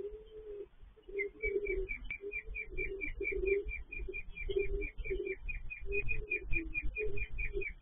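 Pigeons cooing, a low coo repeated over and over. From about a second in, a small bird keeps up a fast run of high chirps, about six a second.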